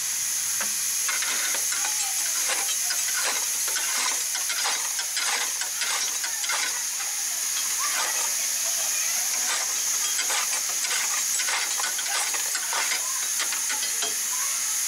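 Steam hissing steadily from a miniature steam locomotive, with a fast irregular crackle mixed in.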